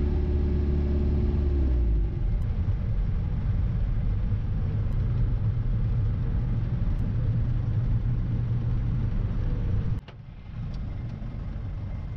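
Motor vehicle running, a steady low engine and road rumble. It drops suddenly about ten seconds in and carries on more quietly.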